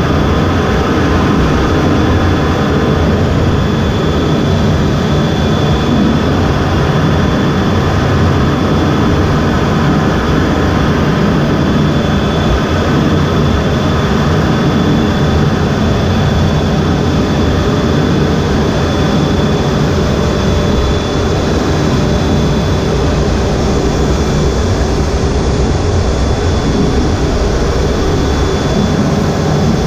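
The EA-18G Growler's twin GE F414 turbofan engines running steadily, heard from inside the cockpit: a dense low rumble with a faint, steady high whine over it.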